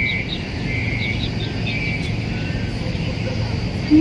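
Outdoor city park ambience: a steady low rumble of traffic, with small birds chirping in short, high notes throughout.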